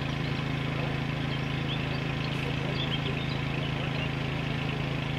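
A steady low mechanical hum of an engine or motor running without change, with a few faint high chirps above it.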